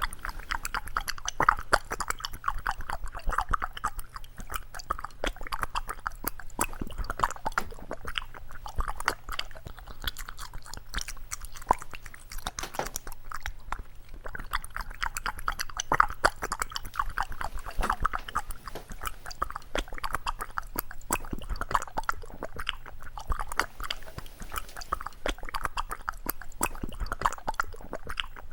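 A cat lapping from a drinking bowl: a long, unbroken run of quick clicks.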